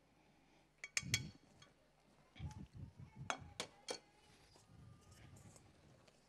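A metal spoon and frying pan clinking against small serving plates while food is portioned out: two sharp clinks about a second in, then a quicker run of about five more.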